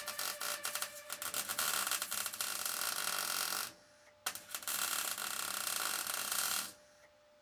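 Electric arc welding on a steel roof frame: a crackling, sizzling arc in two runs. The first run stops about three and a half seconds in, and after a brief pause a second run stops shortly before the end.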